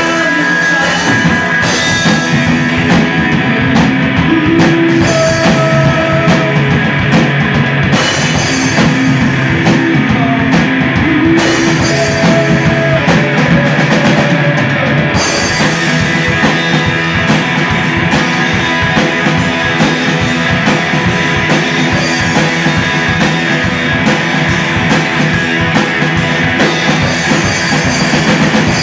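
Live rock band playing loud: distorted electric guitar over a pounding drum kit, with no vocals standing out.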